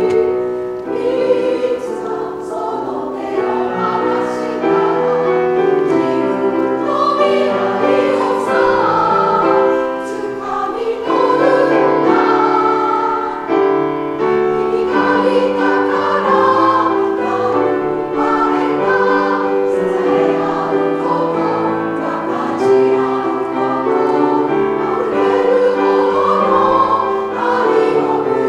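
Community women's choir singing a Japanese song in chorus, with piano accompaniment.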